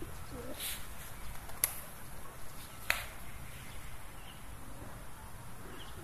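Feral pigeons cooing softly, with three sharp clicks in the first three seconds over a steady low background rumble.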